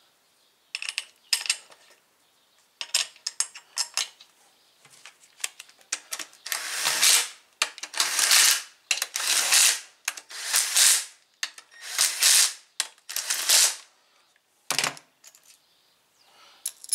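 Hand ratchet wrench working in bolts on a gearbox, about six long ratcheting strokes in the middle, after a few light metallic clicks and clinks. A single sharp click comes near the end.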